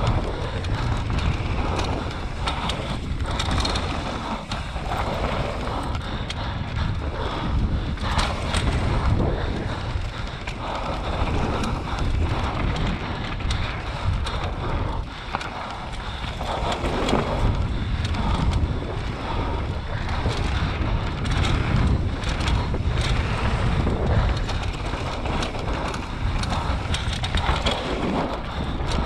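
Enduro motorcycle ridden over rough terrain, its engine running under heavy wind noise on the onboard microphone, with frequent short knocks from the bike over the ground.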